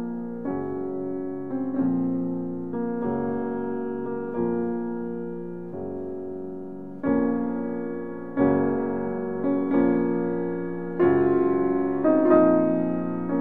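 Background piano music: slow chords struck about every second and fading, growing louder about halfway through.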